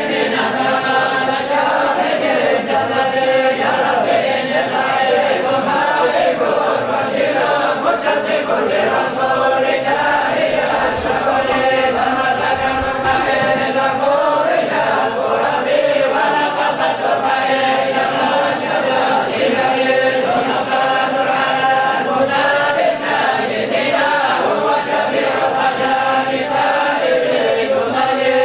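A group of voices chanting together in unison, continuous and steady.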